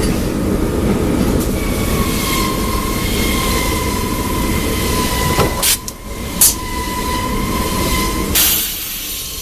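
Metalworking factory machinery running with a steady heavy rumble and a high whine held from about a second and a half in. Two sharp bangs come about six seconds in, and a short burst of hiss near the end.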